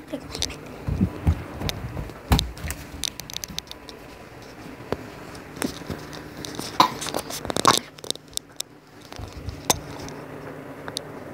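Handling noise from a handheld recording device being moved about: scattered sharp clicks, knocks and short scrapes, a pair of louder knocks near 7 to 8 seconds in, over a faint steady low hum.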